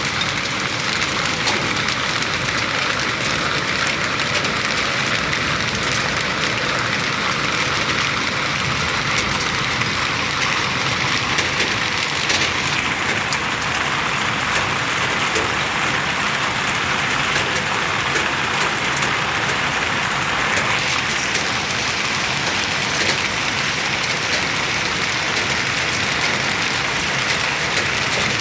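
Hail and heavy rain pelting down: a dense, steady patter of countless small impacts.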